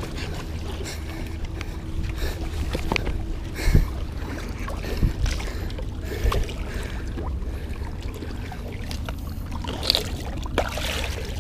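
Wind rumbling on an action camera's microphone over water sloshing against a rock jetty, with scattered scuffs and knocks of shoes and clothing on the rocks; the loudest knocks come about four and five seconds in.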